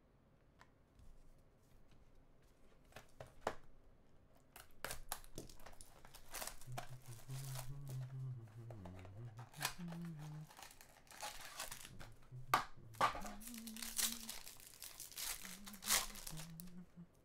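A trading-card pack wrapper being torn open and crinkled, with rustling and irregular crackles as the cards are handled.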